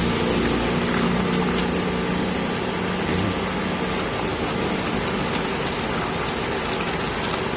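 Chicken and vegetable chunks sizzling steadily in their own juices in a nonstick wok while being stirred with a silicone spatula. A low steady hum runs under the sizzle for the first few seconds, then fades out.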